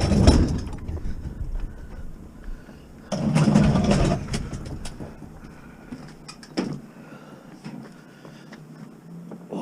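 A motor vehicle's engine, loudest at the start and again for about a second from three seconds in, then quieter, with a few sharp knocks.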